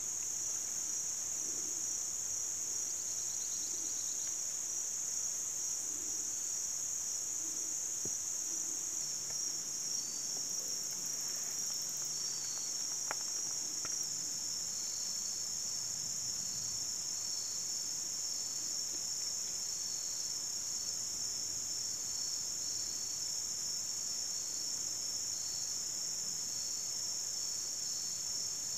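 Steady high-pitched chorus of insects, with another insect adding short chirps about once a second from about a third of the way in.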